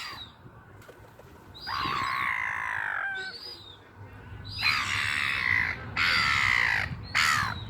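Seagulls calling: four long harsh calls, each sliding down in pitch at its end, and one short call between them.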